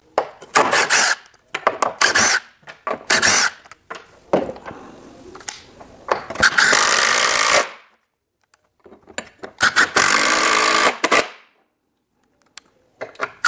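Cordless impact driver hammering screws out of and into an aluminum post anchor: a string of short bursts first, then two longer runs of about a second and a half and two seconds as the #14 x 3-inch stainless screws are driven home.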